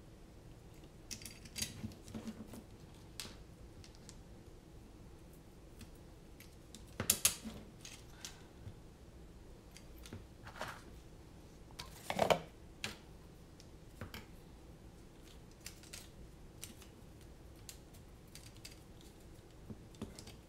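Small clicks, taps and rattles of hands handling a racing-drone frame and fitting its small arm screws, with two louder knocks about seven and twelve seconds in.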